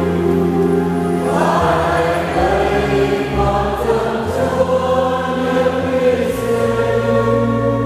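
Church choir singing a slow hymn, with an instrument holding long bass notes that change every second or two beneath the voices.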